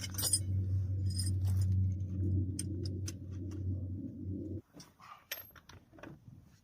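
Small car engine idling steadily, then switched off about four and a half seconds in, with keys and metal bits clinking around it.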